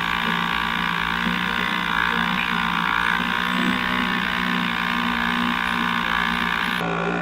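Lohmann 18cc two-stroke variable-compression diesel moped engine running steadily while the moped is ridden along.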